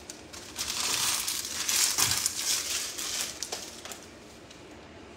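Foil wrapper of a basketball trading-card pack crinkling as it is handled, for about three seconds, then it stops.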